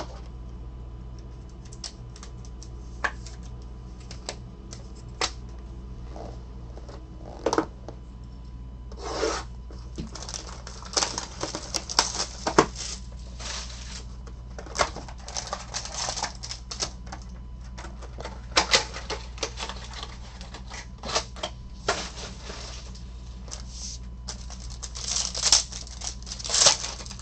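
Cards and hard plastic card holders clicking and tapping on a table, a few sharp ticks, then the crinkling and tearing of a foil trading-card pack wrapper being opened by hand, loudest near the end. A steady low hum runs underneath.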